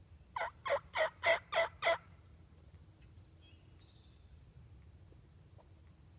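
A wild turkey call: a run of six evenly spaced raspy yelps, about four a second, lasting under two seconds. Faint songbird chirps follow a little later.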